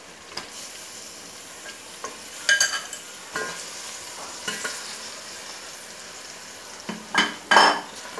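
Raw chicken pieces sizzling and frying in hot oil and masala in a metal pot, stirred with a wooden spatula. Louder knocks and scrapes against the pot come about two and a half seconds in and again near the end.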